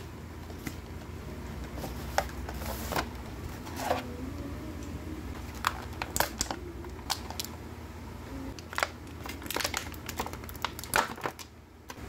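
Action figure packaging being handled: a cardboard box flap and a clear plastic blister tray, giving scattered crinkles, clicks and rustles over a steady low hum.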